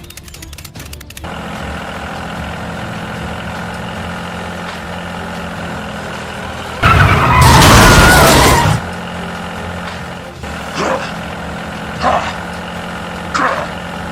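A heavy-vehicle engine running steadily. About seven seconds in comes a loud burst of noise lasting about two seconds, and near the end three short squeaks.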